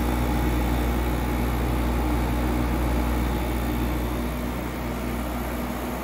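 Hisense portable air conditioner running: a steady low compressor hum over the even rush of its fan, the compressor now starting and running on a newly replaced capacitor.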